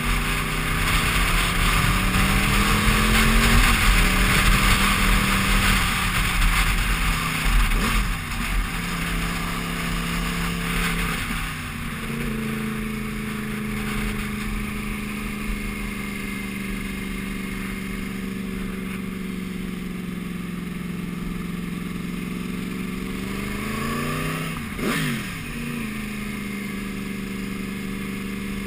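Sport motorcycle engine running under way, heard from the rider's helmet, its note rising and falling with the throttle and twice dipping sharply and climbing back. Wind rushes over the helmet, loudest in the first several seconds.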